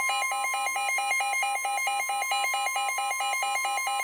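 NOAA Weather Radio sounding a tornado warning alert: a steady warning tone near 1 kHz, with the receiver's alarm beeping over it, switching rapidly between two pitches about four to five times a second.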